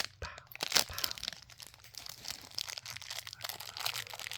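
A sealed trading-pin blind pack being ripped open and crinkled by hand: dense crackling of the packaging with sharp louder crackles at the start and just under a second in.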